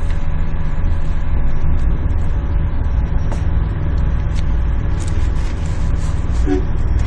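Coach bus engine and road noise heard from inside the cabin while driving: a steady low rumble, with a few brief clicks and rattles.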